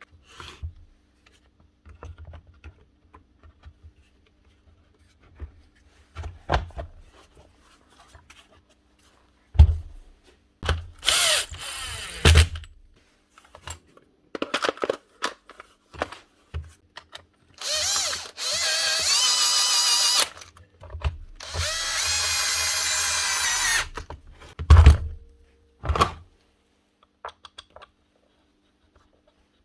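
Small power-tool motor running in three bursts of one to three seconds each, with a whining pitch, amid clicks and knocks of handling metal and plastic parts; a sharp thump comes twice, about ten seconds in and shortly before the end.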